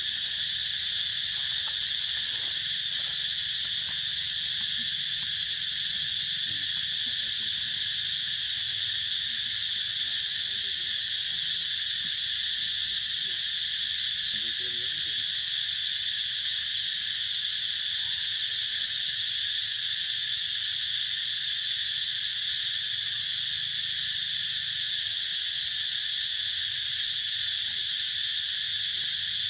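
Steady chorus of insects: a continuous, shrill, high-pitched buzz that does not let up.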